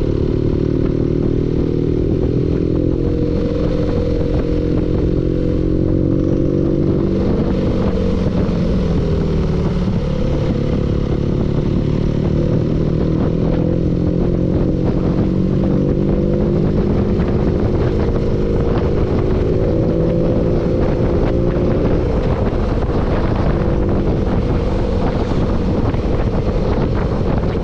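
Engine running with a knock, a rapid ticking clatter over the engine note; its speed sags about nine seconds in and then picks up again.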